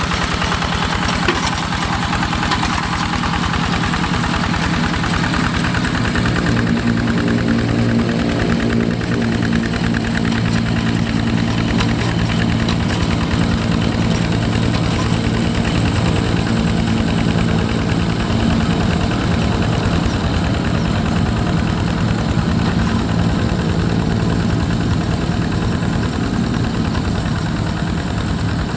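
Single-cylinder Yanmar diesel engine of a Quick G1000 walking tractor running steadily with a rapid, even beat. It is heard up close for the first few seconds, then more distant and lower-toned.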